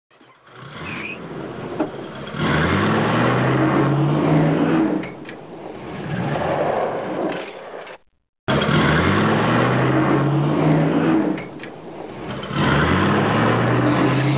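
A car engine revving up, its pitch rising and then holding, heard twice in the same way with a brief silence about eight seconds in.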